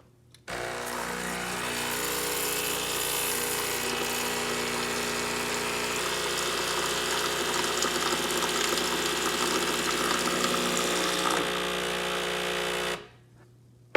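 Breville espresso machine's steam wand releasing steam during a descaling cycle: a loud, steady hiss with the pump's buzz beneath it. It starts about half a second in and cuts off suddenly shortly before the end.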